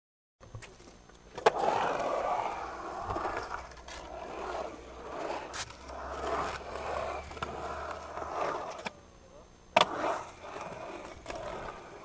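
Skateboard wheels rolling on a concrete bowl, the roar swelling and fading as the board carves the walls, with sharp clacks of the board striking about a second and a half in and again near the end.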